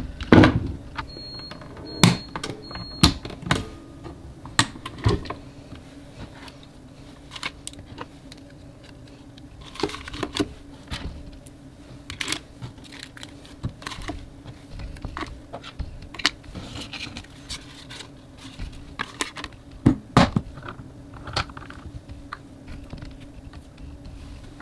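Irregular clicks, taps and knocks of a hard plastic box and small merchandise being handled on a table: the box's lid opened and photo cards set inside it. The sharpest knocks come near the start, two or three seconds in, and again about twenty seconds in, over a steady low hum.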